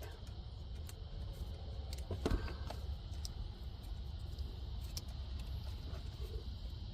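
Faint rustling and a few soft clicks as tape is wrapped around a cable end and a zip tie, joining them into a pull line, over a steady low hum. One slightly louder rustle comes about two and a half seconds in.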